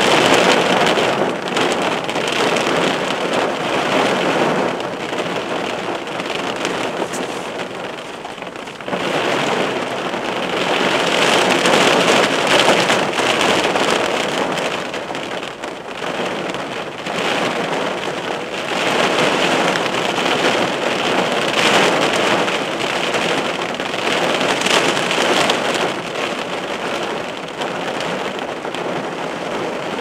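Downpour pelting a car in a downburst storm: a dense, loud hiss of heavy rain that swells and eases every few seconds.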